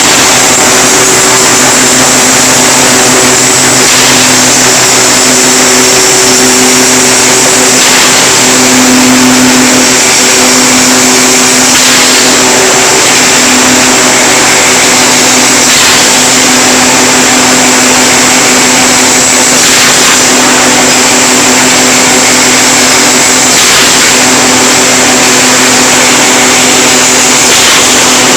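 TJK GT8-12 wire straightening and cutting machine running: a loud, steady mechanical whir with a constant high whine, and a brief knock about every four seconds.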